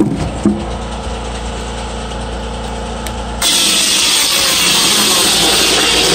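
Belt-driven circular cut-off saw spinning free, then about three and a half seconds in its blade bites into a stick of firewood and cuts with a loud, steady sawing noise.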